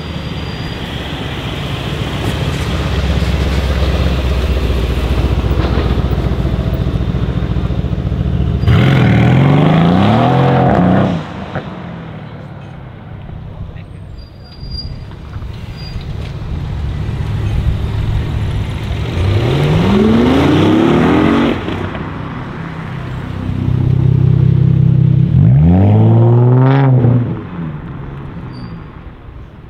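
Performance car engines: a deep V8 rumble from the Brabus-tuned Mercedes C63 S AMG Estate with its Brabus exhaust, rolling slowly and building, then three hard full-throttle accelerations. They come about a third of the way in, two-thirds in and near the end; each is a rising rev lasting two to three seconds that cuts off sharply.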